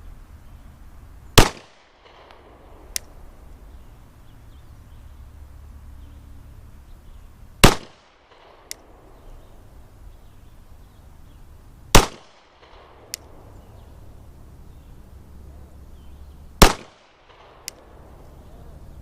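Glock 19 9mm pistol fired strong hand only: four slow, deliberate single shots about four to six seconds apart, each a sharp crack with a short echo. A fainter sharp click follows about a second after each shot.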